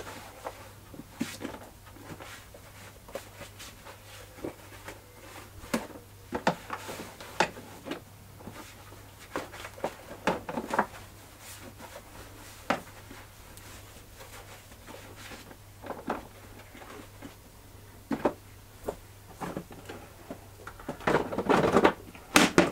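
Microfiber cloth wiping and rubbing over the hard plastic of an electric lawn mower's grass box, with scattered light knocks and taps of the plastic being handled. Near the end comes a louder run of plastic knocks and clatter as the mower body is handled.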